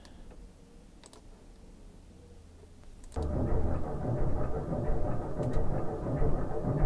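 A faint click over low hum, then about three seconds in a slowed-down recording of a two-stroke dirt bike engine starts playing: deep, low firing pulses that grow stronger as the throttle is opened.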